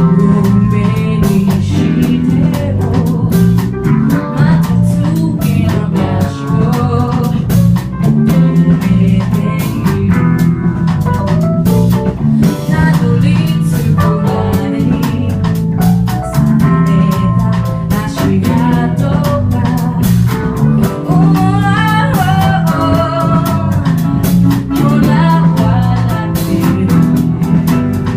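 Live band music with electric guitar and drum kit, played loud and steady without a break.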